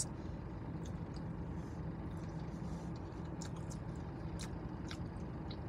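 Steady low hum inside a car's cabin, with a few faint, sharp clicks of someone chewing food.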